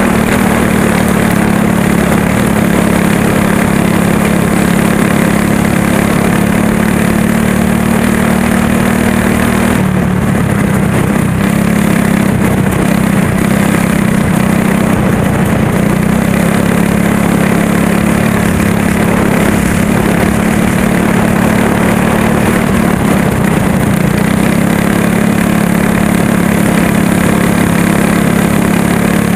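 Go-kart engine running hard and loud during a race, heard from on board the kart. The pitch dips about ten seconds in, wavers lower through the middle, and climbs back to full revs near the end, as the throttle is eased and reapplied around the dirt oval.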